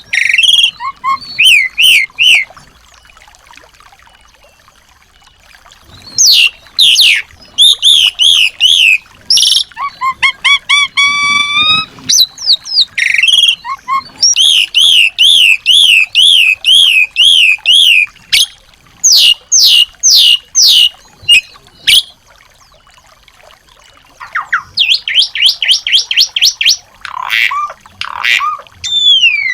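Small songbird singing loudly in bouts of varied whistles, fast trills and rapid rising-and-falling chatter, with two pauses of a few seconds between bouts. It is the kind of small-bird song played to white-rumped shamas to set them singing.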